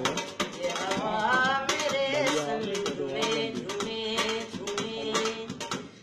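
Music: a steel plate drummed with the fingers as a quick rhythm, under a wordless vocal tune.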